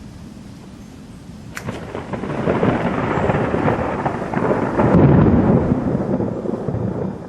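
A thunderclap: a sharp crack about a second and a half in, then a rolling rumble that builds, is loudest about five seconds in, and dies away near the end.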